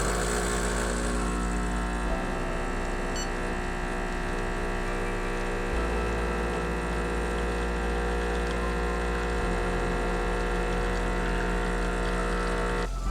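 Rancilio espresso machine's pump running steadily as it pushes water through the coffee during a shot, changing abruptly near the end.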